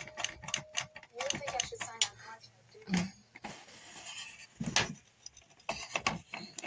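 Rapid plastic clicking from a small ceramic space heater's push button being pressed repeatedly and hard, followed by a few louder knocks as the heater is handled. The button sinks in but the heater does not switch on.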